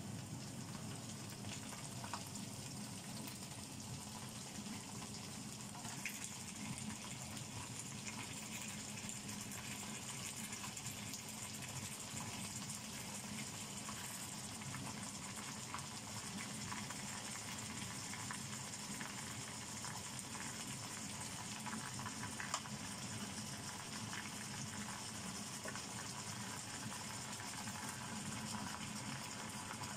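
Raw chicken pieces sizzling in hot oil with fried onions in a nonstick wok, a steady sizzle with a few light knocks as pieces go in.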